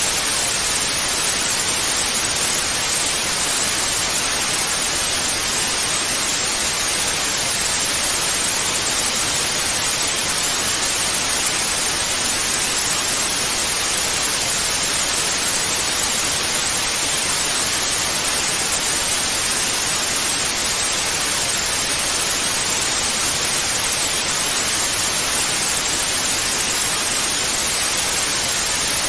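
Television static (white noise): a steady, unchanging bright hiss, heavier in the upper range and thin in the low end.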